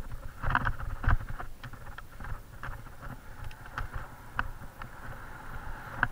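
Mountain bike jolting over a bumpy forest dirt trail: irregular knocks and rattles from the bike as it hits ruts, the strongest about half a second and a second in and again near the end, over a steady rush of riding noise and wind on the bike-mounted camera's microphone.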